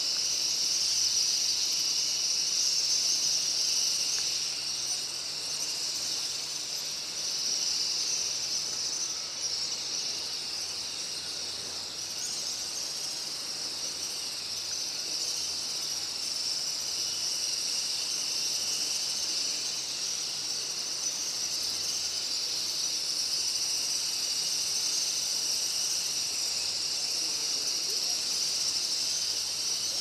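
Steady high-pitched shrill drone of insects, unbroken throughout.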